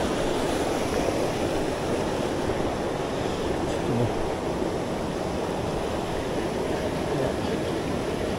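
Rushing water of a mountain headwater stream, a steady even rush, with the stream still running high after heavy rain.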